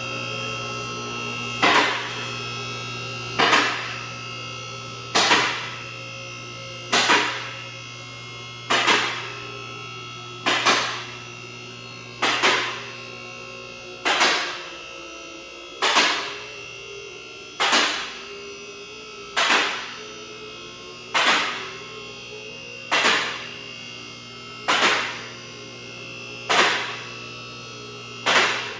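Two-post car lift raising: the electric hydraulic pump motor hums steadily while the safety locks clack about every two seconds, sixteen times in all, as the carriages climb past each lock position.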